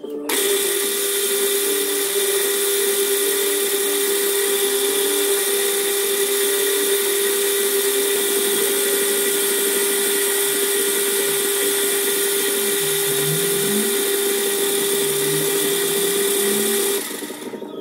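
Metal lathe spindle running steadily with a high whine and a hum, starting suddenly just after the start and cutting off about a second before the end.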